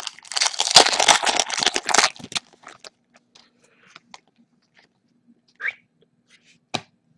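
Hockey card pack wrapper torn open and crinkled, a dense crackle lasting about two seconds. After it come a few faint clicks and slides as the cards are handled, with one sharp click near the end.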